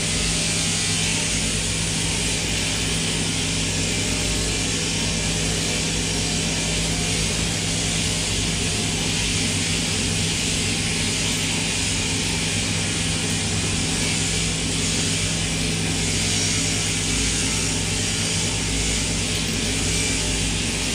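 Electric sheep-shearing machinery running steadily: a constant motor hum under the even buzzing hiss of the shearing handpiece's cutter.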